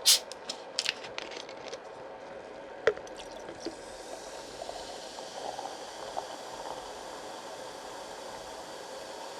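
Close-miked eating sounds of pork bone soup: wet, squishy chewing with a few sharp clicks in the first three seconds, then a steady faint hiss with softer small sounds.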